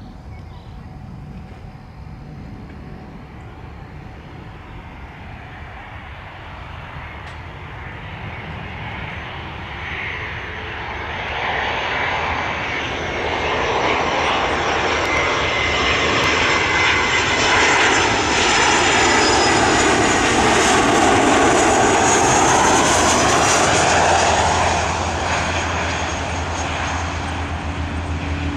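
Jet airliner's engines passing at an airport: the noise builds over about ten seconds, stays loud for several seconds, then eases near the end.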